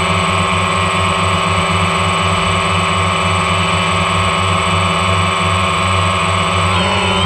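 Quadcopter drone's electric motors and propellers whining steadily as it hovers and drifts, several held tones at once; the pitches bend near the end as the motor speeds change.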